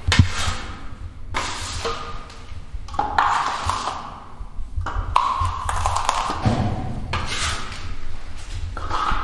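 Wide steel skimming blade scraping wet gypsum finishing compound across a wall, about six strokes with short breaks between them. A knock near the start comes as compound is loaded onto the blade from a small spatula.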